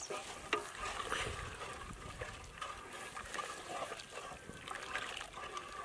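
Roasted rice flour poured into warm jaggery water in a metal pot while a spoon stirs it: soft sloshing and trickling of the liquid, with a few light clicks of the spoon against the pot.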